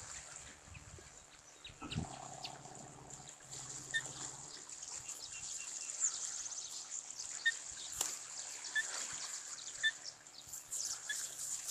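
Outdoor ambience with a steady high hiss and short, high bird chirps scattered through it. A brief low hum comes in about two seconds in, and there is a single sharp click near the end.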